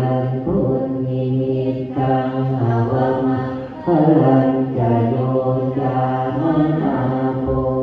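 Buddhist group chanting of Pali verses in unison: a steady, low monotone recitation with brief breaks for breath.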